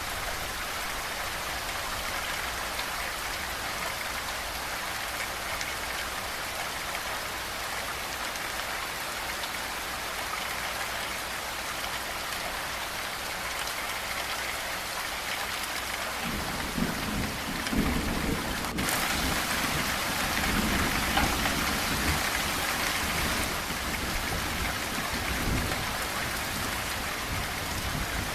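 Steady heavy rain hissing on a surface, with a long roll of thunder rumbling in a little past halfway, loudest for a few seconds and then slowly dying back under the rain.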